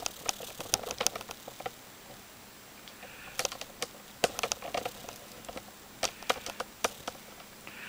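Irregular light clicks and taps in short clusters, like keys or buttons being pressed.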